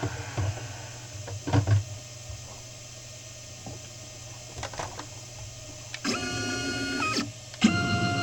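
A PCB-milling CNC machine's stepper motors drive the axes in steady whining moves, one about six seconds in and another starting shortly before the end, at a different pitch. A few light knocks come first.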